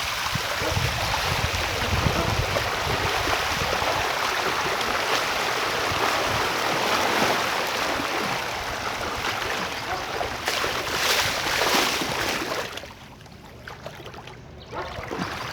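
Rushing floodwater after heavy rain, a steady, dense hiss of flowing water that grows louder about ten seconds in, then falls away sharply near the end.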